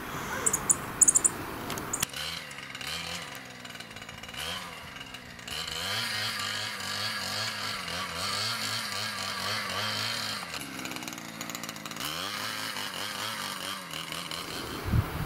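Small gasoline engine of a walk-behind rototiller running under load as it churns soil and peat moss, its pitch rising and falling over and over. It comes in about two seconds in, after a few faint clicks.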